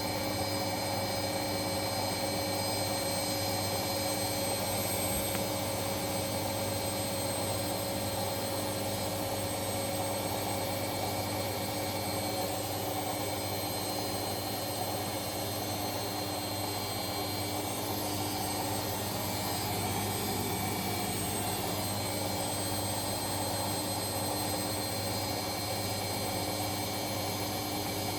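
Siemens front-loading washing machine spinning steadily on its final spin: an even drum rush with a constant motor whine and hum, holding one speed.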